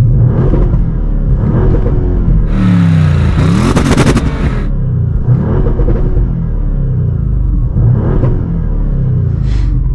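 Audi RS6 engine revved repeatedly, heard inside the cabin with the doors closed and the exhaust valves open in dynamic mode. There are about six rev blips that rise and fall, and the biggest, about three to four seconds in, carries a rush of noise.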